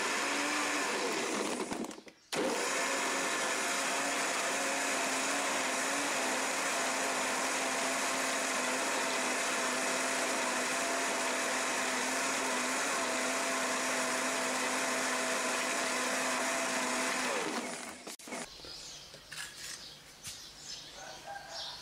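Countertop blender motor running at full speed, blending mango, milk and ice cubes. It cuts out briefly about two seconds in, then runs steadily until it is switched off and spins down near the end. A few light knocks follow as the jar is lifted off the base.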